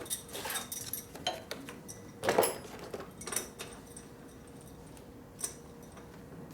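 Metal hand tools and parts clinking and clattering as they are picked up and set down on a workbench, in a scatter of separate knocks, the loudest clank a little over two seconds in.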